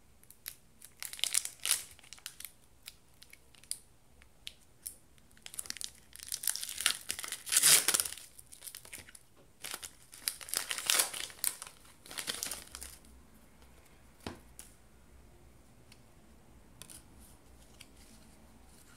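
Foil Pokémon booster pack wrapper crinkling and being torn open by hand, in several bursts, loudest about eight seconds in. After that come a few light clicks and a single soft knock about fourteen seconds in as the cards are handled.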